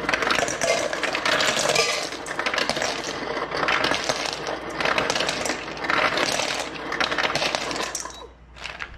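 Ice cubes clattering and clinking against each other and a bowl for an ice bath, in repeated bursts that stop about eight seconds in.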